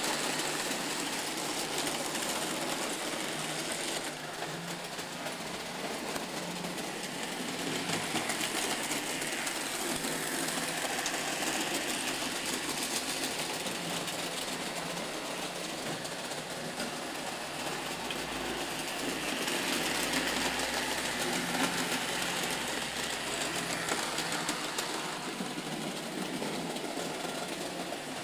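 Märklin model trains running on the layout's track: the locomotives' small electric motors and wheels make a steady whirring rattle, with a low hum for several seconds past the middle.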